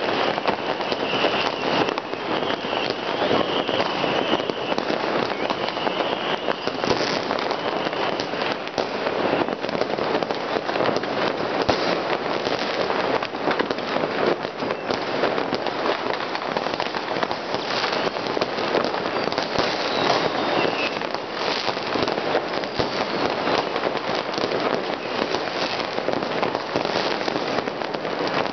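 Many fireworks and firecrackers going off across a city at once, a dense, unbroken crackle of bangs. A faint high whistle runs through the first several seconds.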